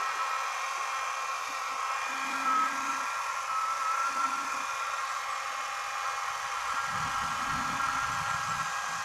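Small handheld hair dryer running steadily, a motor whine over an even rush of blowing air.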